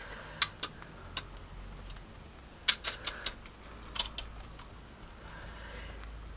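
Light clicks and taps in small scattered clusters, made as a paintbrush is worked between a paper-plate palette and a glued model base.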